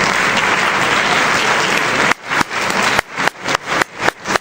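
Audience applauding, starting abruptly; from about two seconds in the clapping keeps dropping away in short gaps.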